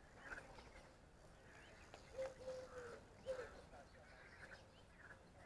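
Faint outdoor background with a bird's three-note call, short, long, short, a little over two seconds in.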